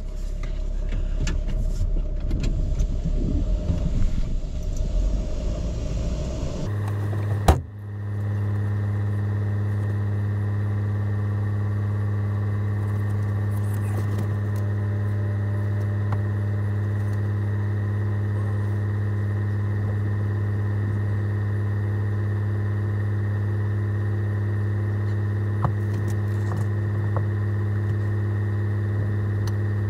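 The 4x4 camper van's engine and rough dirt-road rumble as it crawls along. About seven seconds in, a sudden click is followed by a steady low engine hum with even overtones, unchanging as the van sits with its engine running.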